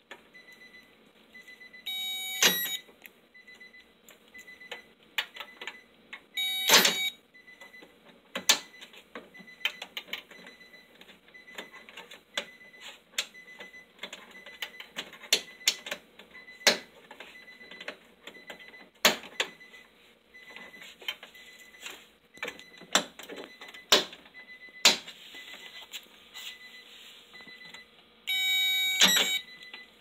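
Irregular clicks and taps of hands working on the power door lock wiring inside an open car door, with two short, loud buzzing beeps, one a couple of seconds in and one near the end. A faint high tone repeats steadily throughout.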